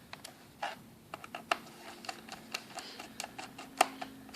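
Small screwdriver driving a screw back into the bottom cover of an HP Pavilion G series laptop: a string of irregular light clicks and ticks, with one sharper click near the end.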